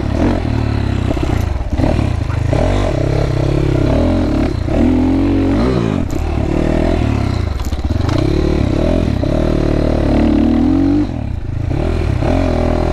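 GPX FSE300R dual-sport motorcycle's four-stroke engine under way, its pitch repeatedly climbing and then dropping back as the bike is ridden through the gears.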